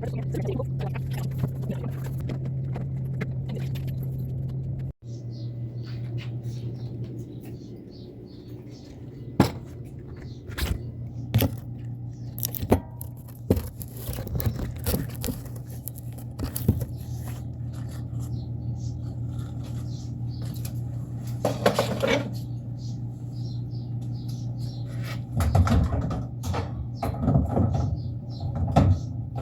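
Scattered clicks, knocks and scrapes of items being handled and wiped, over a steady low hum, with denser clatter near the end.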